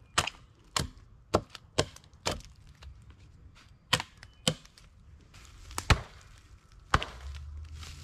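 Hatchet chopping branch stubs off a downed pine pole. The sharp strikes come about two a second at first, then after a short pause come a few more, spaced farther apart.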